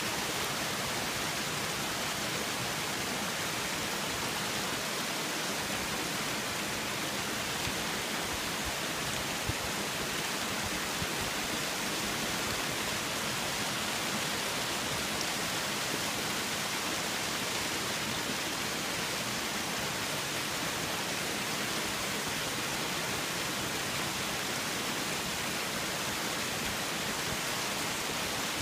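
Steady rush of water from small cascades spilling over rock ledges into a pool.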